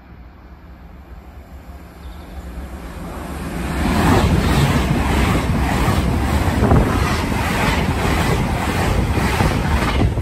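Express passenger train passing through a station at speed without stopping. A rush builds over the first few seconds as it approaches, then the loud rush of wheels and air as the coaches go by, with a regular clatter of wheels over the rails about twice a second.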